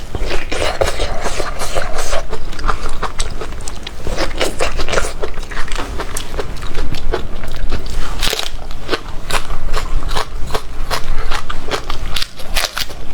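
A person biting and chewing food, a dense run of crunching and crackling mouth sounds.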